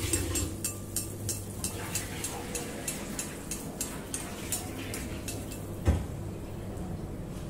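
Malpua batter frying in hot oil in a steel kadhai, crackling with many quick pops that thin out after about four seconds. One louder thump near six seconds.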